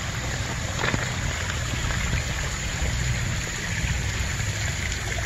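Water of a pondless waterfall splashing and trickling over stacked rocks into a shallow stream: a steady rushing with a low rumble underneath.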